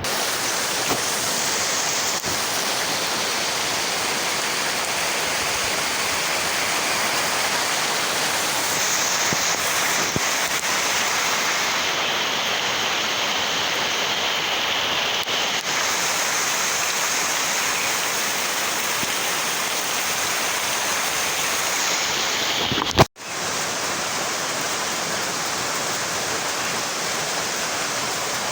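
Heavy rain falling steadily, an even hiss. A sharp click and a split-second dropout come near the end before the rain carries on.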